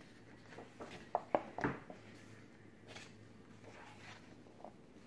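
Pages of a paperback colouring book being turned and handled. A quick cluster of crisp paper rustles and snaps comes about a second in, with fainter rustles afterwards.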